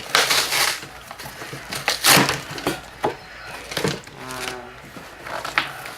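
Packaging being handled and pulled at during an unboxing: two short rustling scrapes, near the start and about two seconds in, then a few sharp knocks and clicks.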